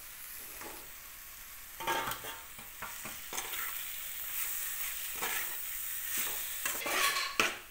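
Onion masala sizzling in a metal kadai on a gas flame while mashed boiled potato is stirred in with a metal spatula. The spatula scrapes against the pan in irregular strokes, starting about two seconds in and busiest near the end.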